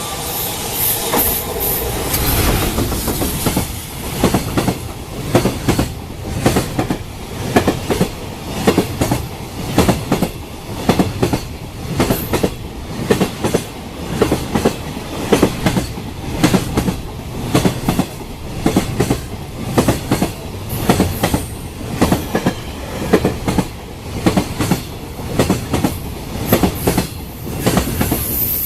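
Container wagons of a freight train passing close by at speed, the wheels clattering over rail joints in a steady clickety-clack, with a cluster of clacks about once a second as each bogie crosses.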